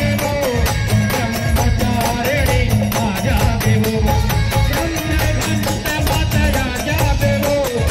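Loud Indian folk-style music with a fast, even percussion beat and a wavering melody line over it.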